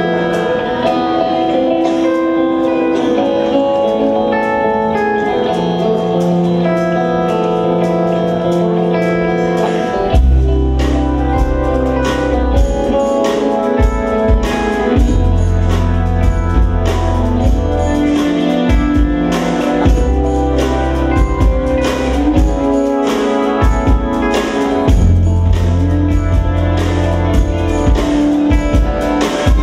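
Live jazz-fusion band playing: sustained chords with no bass or drums at first, then about ten seconds in the electric bass and drum kit come in with a driving groove under keyboards, guitar and horns.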